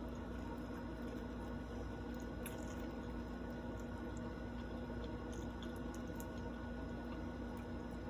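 Chewing food close to the microphone, with small wet mouth clicks here and there, over a steady low electrical hum.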